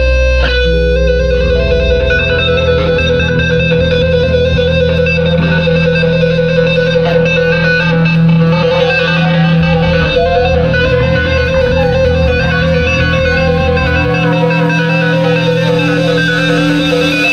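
Live rock band music: an electric guitar holds one long note with vibrato while a higher line bends and glides over it, with bass notes underneath that drop out near the end.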